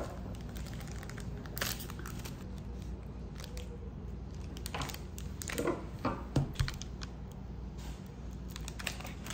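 Plastic snack wrapper crinkling as it is handled, in several short crackly rustles, after a sharp click right at the start.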